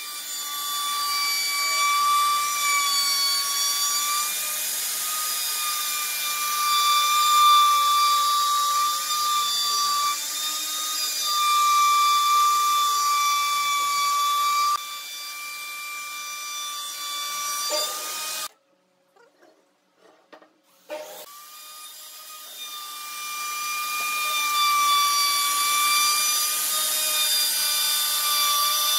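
Electric plunge router (a Dongcheng) running with a steady high whine as its bit cuts a profile along the edge of a pine frame. About two-thirds through, the sound cuts out for a couple of seconds, then the router starts again and winds back up to speed.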